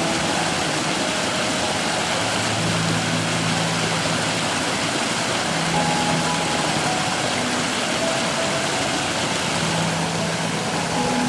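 Mountain valley stream running over rocks: a steady, even rush of water, with faint short tones of water gurgling coming and going.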